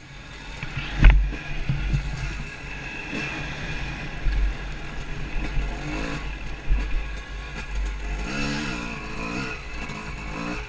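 Yamaha YZ250 two-stroke dirt bike engine heard from the rider's helmet, revving up and down as it is ridden over a dirt track. There is a loud thump about a second in, and a few quick rises and falls in revs near the end.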